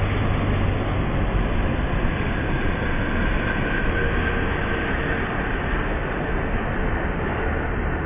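Jet engines of a twin-engine regional jet with rear-mounted engines that has just passed low overhead: a steady loud roar as the aircraft moves away, with a faint whine that sinks slightly in pitch midway.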